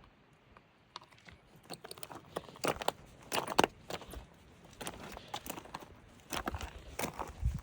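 Footsteps crunching through deep snow, a hiker walking in microspikes; the crunching steps begin about a second in and keep up an uneven pace.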